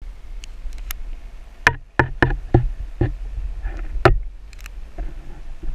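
Underwater sound picked up through a GoPro Hero 3+ waterproof housing: a steady low rumble of water against the case, with a run of sharp, irregular knocks and clicks in the middle as the housing is handled and bumped underwater.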